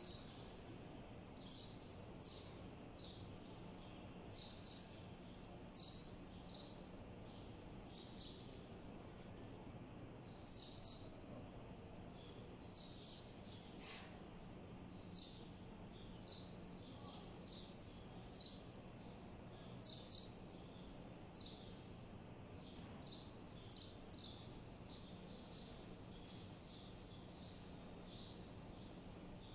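Small birds chirping again and again in short, irregular calls, faint over a low steady hum and the soft background noise of a large open courtyard.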